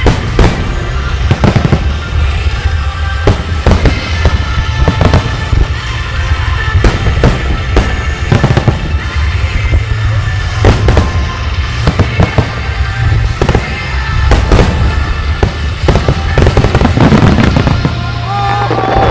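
Aerial firework shells bursting in a rapid barrage, many sharp bangs in quick succession, with music playing alongside.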